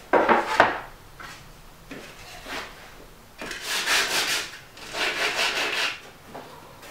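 A wooden panel set down on a stack of panels with two knocks, then a small hand sanding block rubbed quickly back and forth along a plywood panel's edge in two runs of strokes, lightly sanding the part before glue-up.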